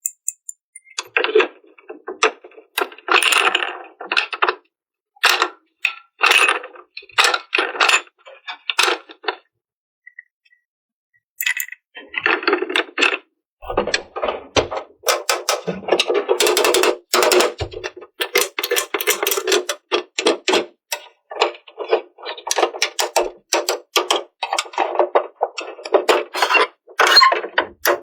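Small plastic toy pieces and packaging being handled and fitted together: irregular clicks, taps and rattles, with a pause of about two seconds near the middle.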